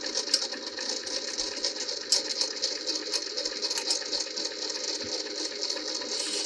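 Rag-wrapped screwdriver riding along a turning Linotype front distributor screw during cleaning, over a steady mechanical running noise, with irregular light clicks and rattles.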